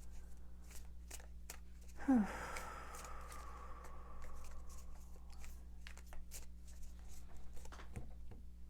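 A deck of tarot cards being shuffled by hand: a run of light card clicks and slaps, with a longer rustle of cards about two seconds in.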